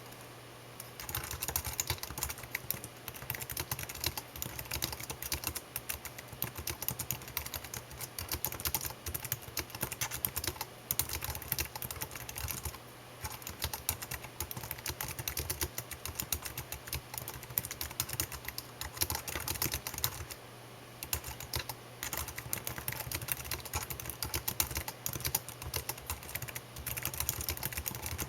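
Fingers typing steadily on a computer keyboard: a rapid run of key clicks broken by a few brief pauses, over a faint steady low hum.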